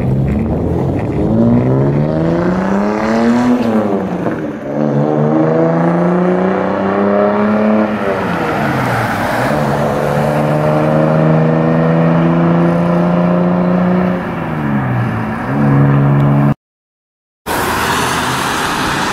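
1993 Toyota Supra MKIV's straight-piped 2JZ straight-six accelerating hard from a standstill, its exhaust note climbing in pitch and falling back at each upshift of the manual gearbox, three times. It cuts out abruptly near the end, giving way to passing-traffic noise.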